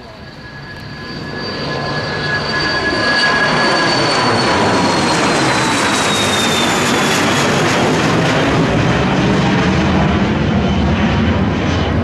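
Cessna Citation XLS+ business jet's twin Pratt & Whitney PW545C turbofans at takeoff power as it climbs out past and overhead. The noise builds over the first three seconds and then holds loud, while a high whine falls slightly in pitch as the jet goes over.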